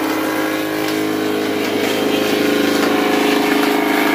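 A multipurpose woodworking machine's electric motor and cutter head running steadily, a dense mechanical hum that grows a little louder about two seconds in.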